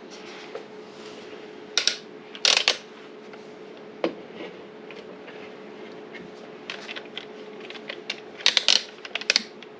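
Light metal clicks and clinks of door-lever hardware being handled while a mounting screw is fitted by hand, coming in small clusters about two seconds in and again near the end.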